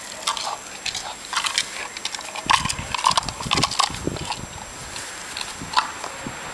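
German Shepherd puppy sniffing and nosing the grass right by the microphone: quick snuffles, rustling and clicks, loudest and closest for a second or so around the middle.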